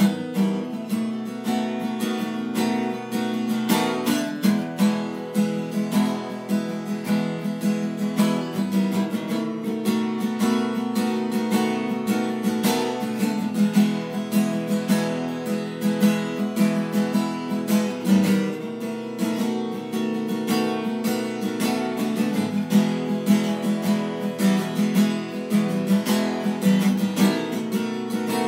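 Background music: strummed acoustic guitar playing steady chords.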